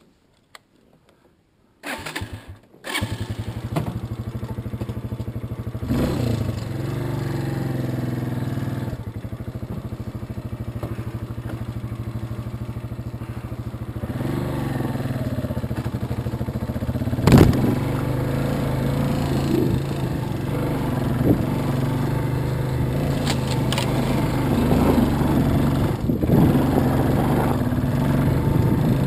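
Small dirt-bike motorcycle engine that starts about two seconds in, then runs steadily with small rises and falls in pitch as it is ridden. There is one sharp loud knock about seventeen seconds in.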